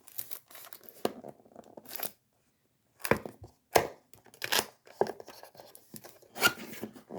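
Cardboard packaging being handled and torn open by hand: a series of irregular sharp rips and rustles, with a short pause about two seconds in.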